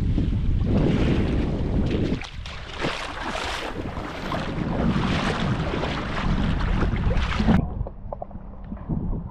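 Wind rumbling on an action camera's microphone, then shallow seawater sloshing and splashing around someone wading in. About seven and a half seconds in, the sound suddenly turns muffled as the camera dips under the water.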